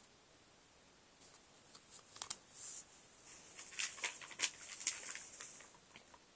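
Sticker sheets and their packaging being handled and set down: scattered light rustles and clicks, starting about a second in.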